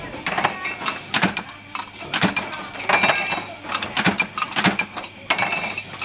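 Small flywheel punch press stamping metal doorknob parts: sharp metallic strikes at roughly one a second, with the steel pieces clinking and ringing as they are handled in and out of the die.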